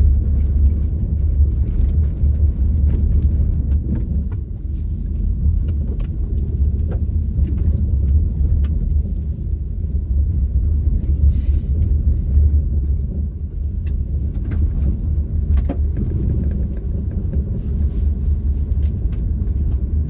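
Cabin road noise of a Hyundai Elantra driving on an unpaved gravel road: a steady low rumble from the tyres and suspension, with scattered small clicks and knocks over the uneven surface.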